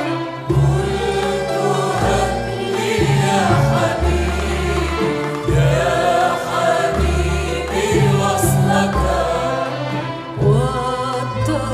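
Arabic oriental song performed live by a mixed choir with a string orchestra. The choir sings a flowing melody over deep bass notes held about a second at a time.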